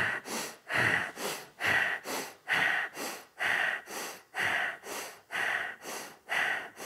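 Breath of fire: rapid, even, rhythmic breathing through the nose, about two breaths a second, with louder and softer strokes alternating, as the navel pumps each inhale and exhale.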